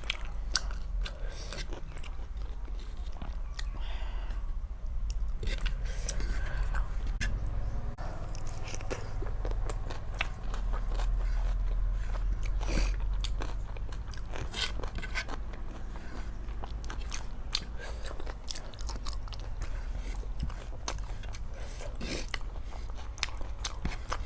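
Close-miked eating sounds: chewing and biting of rice and curry, with many small sharp wet clicks and crunches, over a steady low hum.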